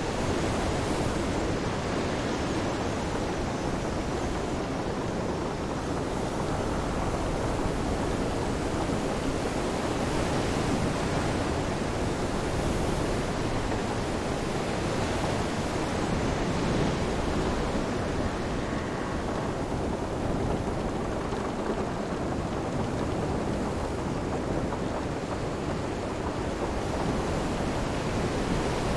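Storm ambience: a steady rush of wind, rain and surf, even throughout with no distinct events standing out.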